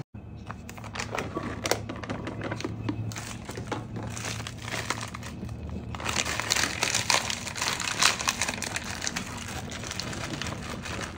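A plastic pouch of pre-cooked diced ham crinkling as hands handle it and shake the ham out into a glass bowl; the crackling gets denser about halfway through.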